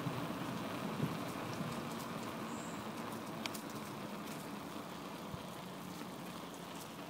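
A bicycle's tyres rolling along a path: a steady crackling noise with scattered small clicks, slowly growing quieter.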